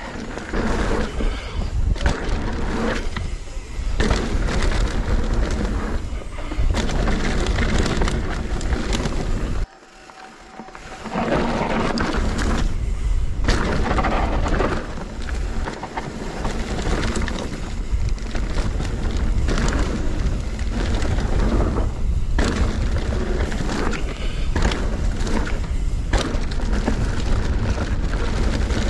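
Riding noise from a mountain bike on a dirt trail, picked up by a handlebar camera: wind buffeting the microphone, tyres rolling over dirt and the bike rattling over bumps and jump landings. The noise drops away suddenly for about a second around ten seconds in, then carries on.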